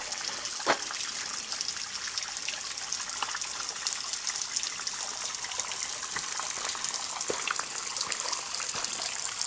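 Water trickling and dripping: a steady hiss of running water with many small drip ticks and a few louder taps.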